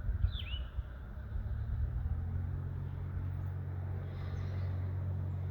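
A motor vehicle's engine running with a steady low hum that grows louder about two seconds in and then holds. A bird chirps briefly near the start.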